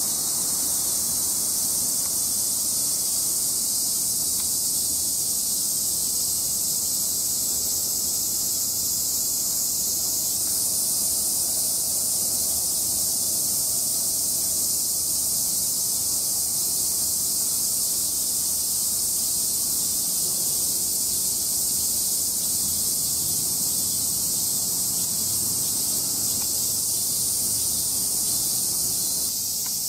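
Steady, high-pitched chorus of insects, likely crickets, shrilling without a break, with its loudness shifting a little at a couple of points.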